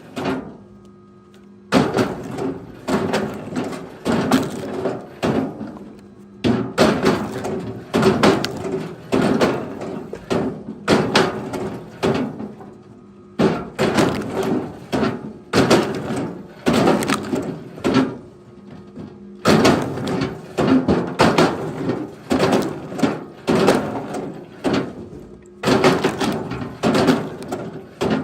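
Repeated hard wooden knocks and clatter, one or two a second with a few short pauses, over a steady low motor hum.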